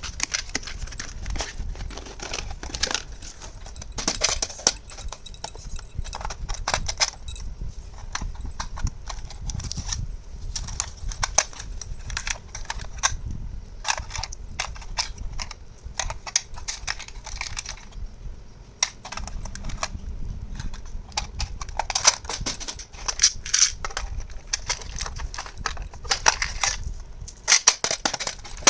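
Small plastic toy kitchen pieces being handled, clicking and clattering against each other and the tabletop in quick irregular knocks.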